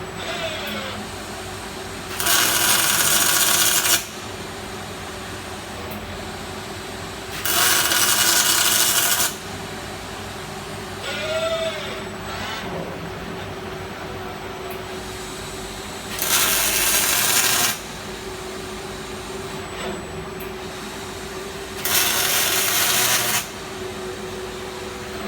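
Fronius CMT robotic welding arc on 25 mm ERW steel tube, striking four short welds of about two seconds each, with a steady machine hum between them.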